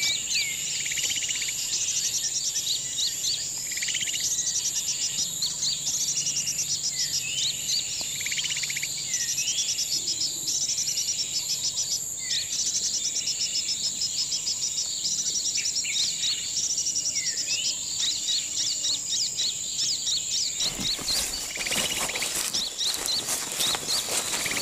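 Insects trilling and buzzing steadily, with scattered short bird chirps and calls over them. About twenty seconds in, rustling and crackling footsteps through undergrowth take over.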